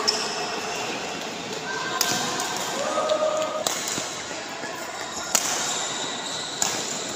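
Badminton racket strings striking a shuttlecock in a rally, five sharp hits spaced about one and a half to two seconds apart, with voices in the background of a large hall.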